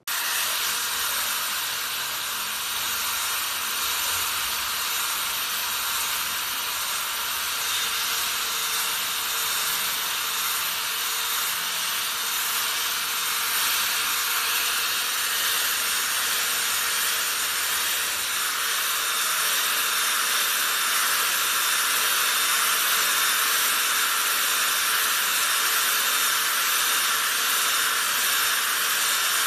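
Corded electric hand drill running at top speed, its bit grinding into a ceramic tile while it is rocked back and forth: a steady hissing grind with a constant whine.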